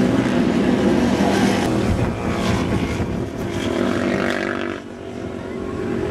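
Racing motorcycle engines running hard as bikes go past on the track, dipping briefly about three-quarters of the way through before rising again.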